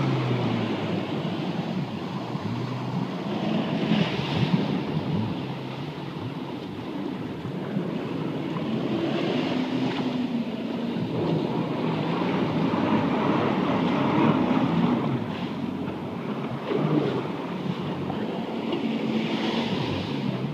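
Personal watercraft engine running through breaking surf, its note rising and falling as it manoeuvres, over the steady wash of waves and spray. Wind buffets the microphone.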